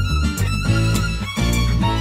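Instrumental background music, a violin melody over shifting bass notes and a steady beat.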